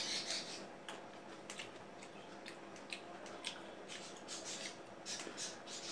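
Quiet chewing and crunching of cut fruit, with irregular short crackles and clicks.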